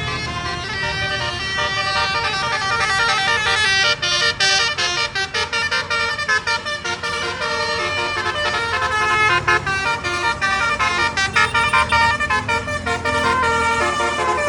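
Tour bus 'telolet basuri' musical horn playing a tune of stepping notes, breaking into quick staccato runs about four seconds in and again near the end.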